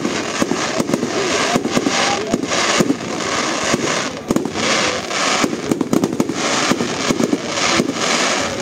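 Aerial fireworks display: shells bursting in quick succession, many sharp bangs over a continuous crackle from the glittering stars.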